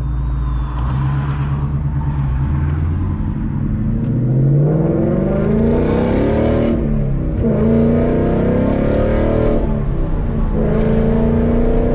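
2019 Mustang GT's 5.0 L V8 through a Corsa Xtreme cat-back exhaust, pulling away under acceleration. The note runs steadily for a few seconds, then rises in pitch twice, dropping back at each gear change, and settles into a steady drone near the end.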